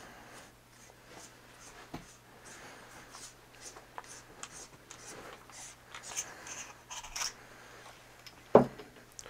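Faint scratching and rubbing of hands unscrewing the head of a Solarforce L2 flashlight, with many small ticks and a sharper click near the end.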